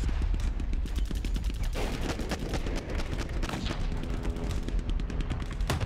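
Rapid gunfire sounds: a dense, irregular run of shots, like machine-gun fire. A few steady low tones join in about four seconds in.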